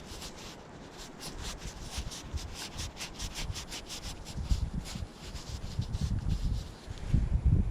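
Fingers rubbing dirt off a crusty old penny: a quick series of scratchy rubbing strokes, about four a second, fading after about five seconds. A low rumbling handling noise then grows toward the end.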